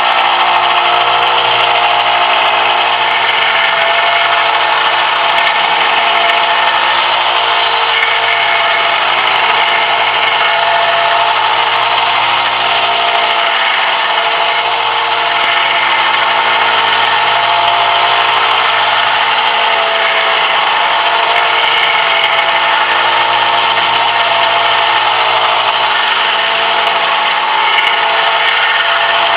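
Electric power tool running steadily on a brass piece: a constant motor hum with a continuous rasping hiss from the metal being worked.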